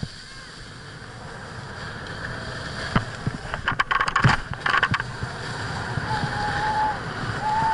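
Snowboard sliding and scraping over packed snow, with wind rushing over the body-mounted microphone. A burst of knocks and edge scrapes comes about three to five seconds in as the board spins around on the snow.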